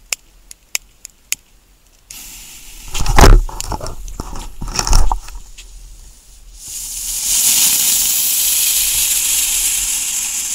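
Lesli ground-spinner firework lit: a few sharp clicks, then loud rustling and bumps, then from about two-thirds in a steady, loud high hiss as the spinner spins and throws sparks.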